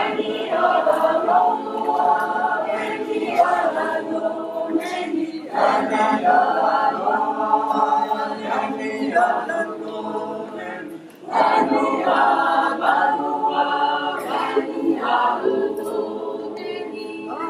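Mixed amateur choir of women's and men's voices singing a cappella under a conductor, with a brief pause between phrases about eleven seconds in.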